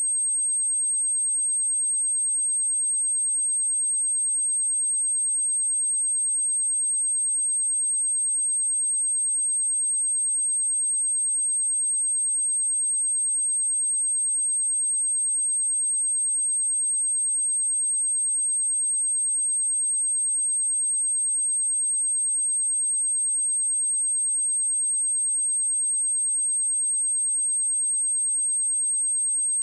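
A pure 8403 Hz sine tone, a single steady high-pitched whistle held unchanged at one level, as played to test speakers or to clear water and dust from them.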